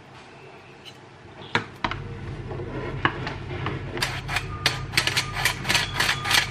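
Flour being sifted, heard as rapid, regular clicking of about four to five a second that starts about four seconds in, over a low steady hum. A couple of sharp knocks of kitchen utensils come before it.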